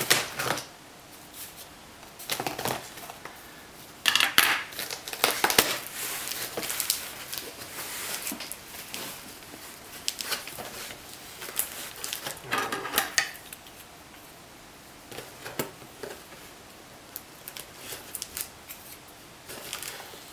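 A tape-wrapped cardboard box being cut and pried open by hand: irregular bursts of scraping, cutting and packing tape tearing, with quieter pauses between them. The loudest stretch comes about four to five seconds in.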